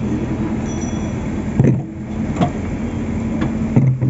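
Backhoe loader's diesel engine idling steadily, with two short low thumps, about one and a half seconds in and near the end.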